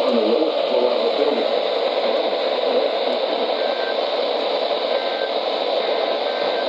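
Steady radio static hiss from a NOAA Weather Radio broadcast receiver.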